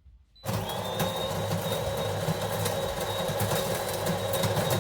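De'Longhi Magnifica Evo bean-to-cup coffee machine running, starting about half a second in: a steady mechanical hum with a thin high whine and dense crackling clicks throughout.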